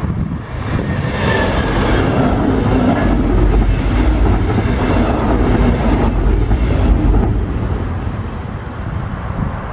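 Electric-hauled double-deck regional train passing close by on the near track: a heavy rumble of wheels on rails that builds up, is loudest in the middle, and falls away after about seven seconds.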